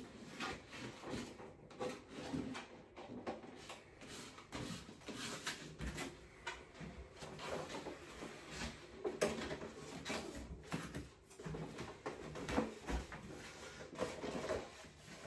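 Faint, irregular rustling and crinkling of paper sticker sheets with scattered light taps and knocks, as vinyl wall stickers are peeled from their backing and pressed onto a wall.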